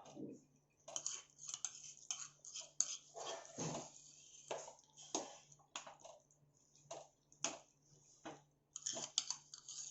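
Irregular clinks, taps and scrapes of kitchen utensils against a pan and dishes, over a low steady hum.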